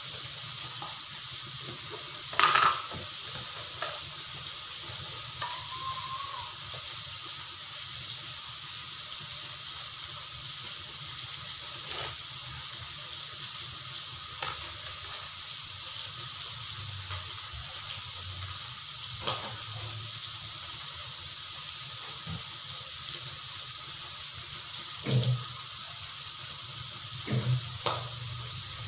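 Squid and melinjo-skin stir-fry sizzling steadily in a wok, with a few sharp clicks and knocks here and there, the loudest about two and a half seconds in.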